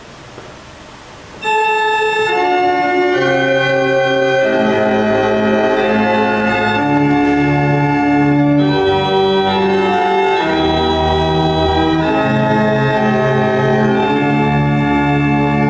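Church organ starts playing about a second and a half in, with held chords over a slow-moving bass line.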